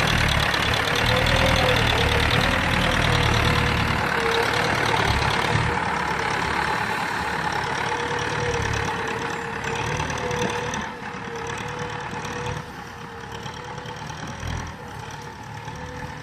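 A motor vehicle's engine running steadily with a low rumble and a slightly wavering whine, growing gradually quieter through the stretch.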